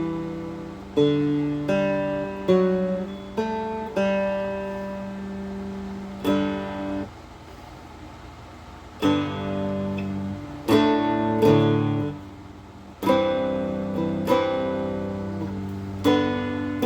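Handmade guitar being played: chords struck one after another, each left to ring and fade, with a pause of about two seconds near the middle.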